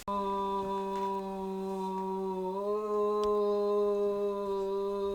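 A woman in active labor vocalizing through a contraction: one long, steady low hum that steps up slightly in pitch about halfway through.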